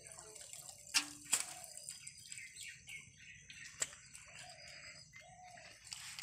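Small birds chirping in short, scattered calls, with three sharp clicks, two close together about a second in and one near the middle, as a ring-net trap is handled in shallow water.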